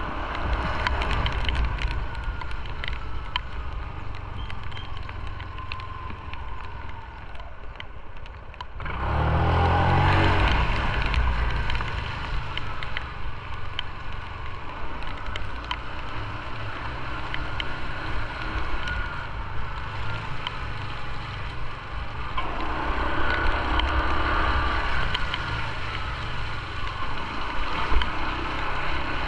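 Motorcycle engine running at low speed, its pitch rising and falling with the throttle, with a sharp burst of acceleration about nine seconds in.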